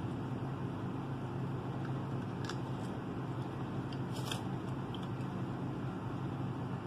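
Crab leg shells being cracked and picked apart by hand. There are a few short, sharp cracks about two and a half seconds in and again around four seconds, over a steady low hum.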